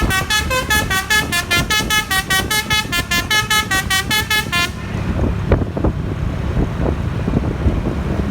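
A bus's 'basuri' telolet horn from its roof-mounted trumpets plays a rapid melody of short honking notes that step up and down in pitch, and it stops a little over four and a half seconds in. After that there is only the low rumble of the vehicle and road.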